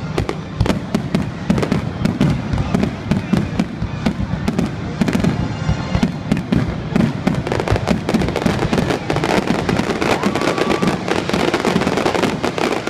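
Fireworks crackling and popping in a dense, irregular stream of sharp reports that crowd together more thickly toward the end.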